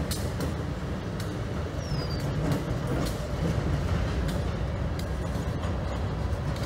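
Freight train's covered hoppers and tank cars rolling past at a grade crossing: a steady low rumble with irregular sharp clicks from the wheels.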